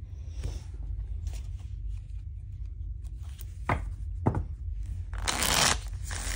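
Tarot cards being handled and shuffled: light flicks, two sharp card snaps a little under and a little over four seconds in, then a half-second rush of shuffling just after five seconds.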